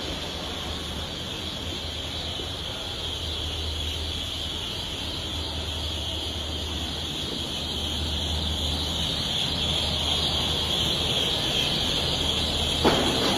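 Steady machine drone of a factory workshop: a low hum under a high hiss, slowly growing louder, with one sharp click near the end.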